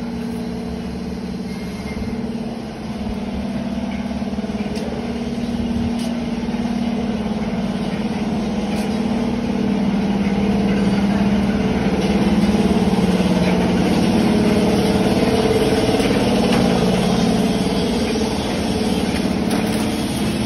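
Factory-floor machinery running: a steady, slightly wavering hum with a rushing noise over it that grows louder about halfway through and eases near the end.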